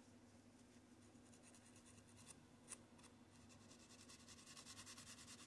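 Faint, rapid rubbing strokes of a small pad scrubbing and polishing a model locomotive's metal wheels, growing stronger near the end, with one click a little after halfway, over a low steady hum.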